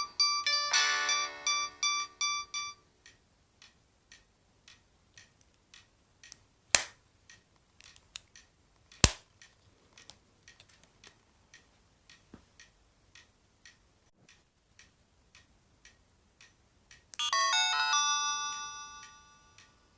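O2 X2 mobile phone playing a polyphonic ringtone melody through its small speaker, stopping about three seconds in. After it come soft regular ticks and two sharp clicks, and near the end another short chiming melody.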